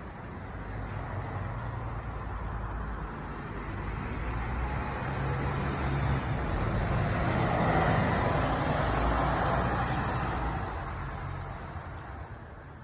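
A car driving past, its engine and tyre noise swelling for about eight seconds and then fading away near the end.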